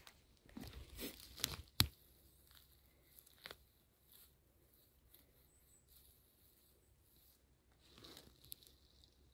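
Dry forest-floor litter (twigs, pine needles and moss) crackling and snapping as a mushroom is picked by hand, with a cluster of sharp snaps in the first two seconds, the loudest just before two seconds in, and another at about three and a half seconds. A soft rustle of footsteps in the litter near the end.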